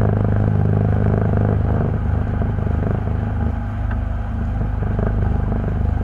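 A steady low motor hum running at an even pitch.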